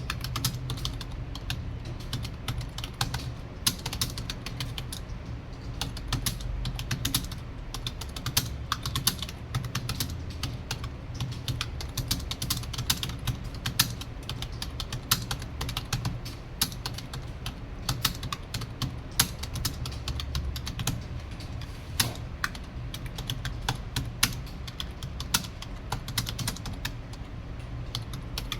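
Fast, steady typing on a computer keyboard during a timed typing test: a continuous stream of key clicks, several a second, with no pauses.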